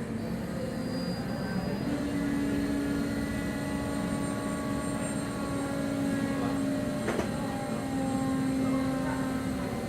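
Steady machinery drone with a pitched hum from the cruise ship's tender-boat operations, the hum stepping up slightly in pitch about two seconds in. A short clank about seven seconds in.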